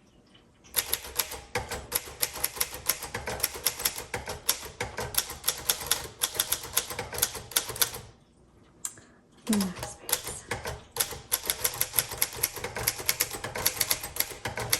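A 1950 Underwood Champion manual typewriter being typed on: rapid keystrokes with the typebars striking the platen, in two runs separated by a pause of about a second and a half near the middle.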